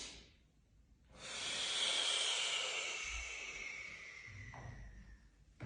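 A long, slow breath out through the mouth, lasting about four seconds and gradually falling in pitch. It is a controlled exhalation during the lowering phase of a Jefferson curl.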